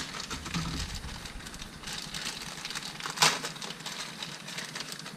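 Thin plastic bag crinkling and rustling as it is pulled open by hand to free a rubber part, with one sharper, louder rustle about three seconds in.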